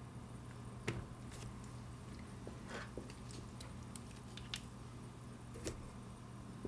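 Light, scattered clicks and taps of small steel staking punches being handled in their wooden staking-set box, the sharpest about a second in, over a steady low hum.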